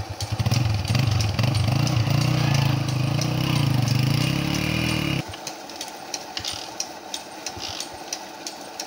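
Honda CG 125's single-cylinder four-stroke engine revving under load as the bike, roped to a diesel engine's pulley, pulls to crank the diesel over. The pitch wavers for about five seconds, then the engine noise cuts off suddenly, leaving faint scattered ticks.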